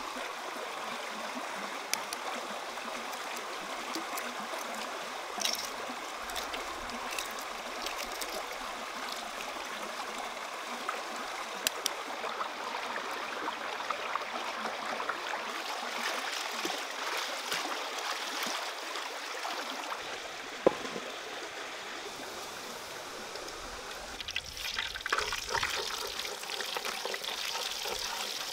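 Water trickling and running steadily, with scattered small clicks and one sharp tap a little past the middle.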